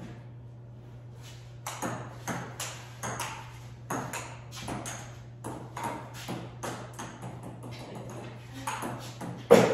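Table tennis rally: a plastic ping-pong ball clicking back and forth off the paddles and the table top, a few clicks a second, starting about two seconds in. A single much louder knock comes near the end.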